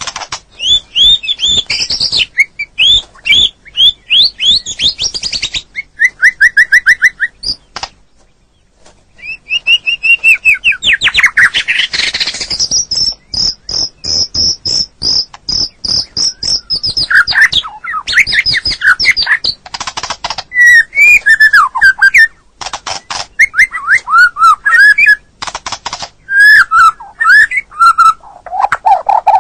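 White-rumped shama (murai batu) singing a loud, varied song of quick whistled phrases, trills and sharp clicking rattles. A long high whistle is held for about four seconds midway, and there is a short pause about eight seconds in.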